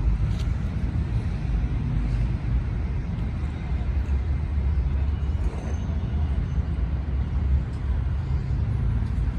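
Steady low rumble of outdoor city ambience with road traffic, loudest in the deep bass and without distinct events.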